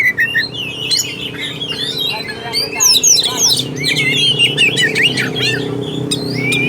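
Oriental magpie-robin (kacer) singing a fast, varied song of sweet whistles and chirps in quick succession, over a low steady hum.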